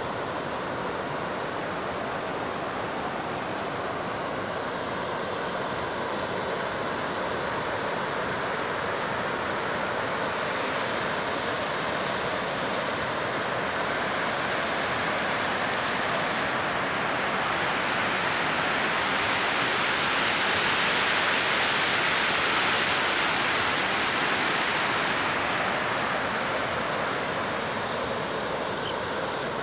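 Muddy floodwater rushing and churning down a flooded stream bed, a steady noise that swells a little louder for several seconds in the later part.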